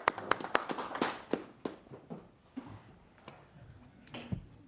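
Applause from a small group in a room dies away into a few last scattered claps over the first couple of seconds. It is followed by quiet room sound with a few light taps.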